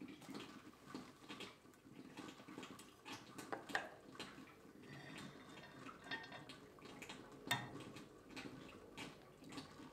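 Faint handling sounds: light clicks and knocks of glass, plastic and metal being set down and moved on a stone slab, with a sharper knock a little before 4 s in and again about 7.5 s in.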